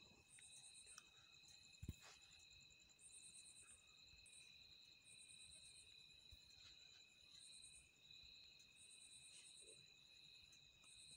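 Faint night insects trilling: a steady high trill runs throughout, with a higher, pulsing chirp in short bursts about every two seconds. A single soft thump comes just under two seconds in.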